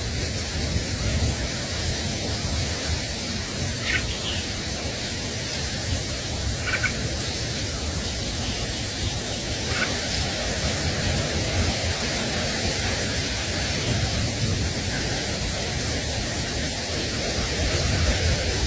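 Steady rushing noise with a fluctuating low rumble underneath, and a few faint short chirps in the first half.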